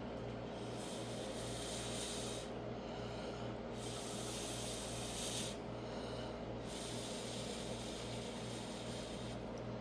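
Breath blown through a drinking straw onto wet acrylic pour paint to push it across the surface: three long hissing puffs of one and a half to two seconds each, with short pauses for breath between them, over a steady low hum.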